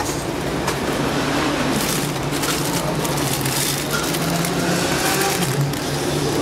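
Thin plastic bags and bubble wrap crinkling as a hand rummages through bagged toy figures and lifts one, with a steady low hum behind.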